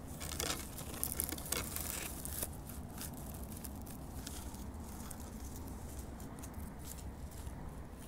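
Dry pine needles and twigs crackling and rustling, with a cluster of sharp clicks in the first couple of seconds and sparser ticks after, over a steady low rumble.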